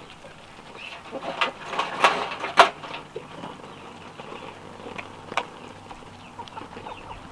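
Backyard chickens clucking as they forage, with a cluster of short, sharp sounds between about one and three seconds in and a couple more near the end.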